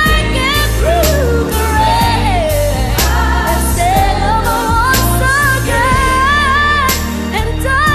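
A pop ballad playing: a lead singer holds long, wavering notes and slides between them over a steady band and bass backing.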